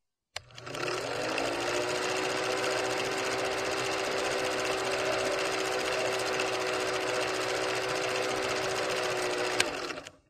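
Film projector running as a sound effect: a steady mechanical whir with rapid clatter. Its pitch rises as it starts, then it holds level, with a sharp click just before it cuts off.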